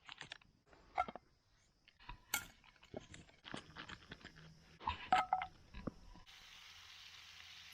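Camp gear being handled: an irregular run of knocks, clinks and crunching sounds. About six seconds in these give way to a steady faint hiss.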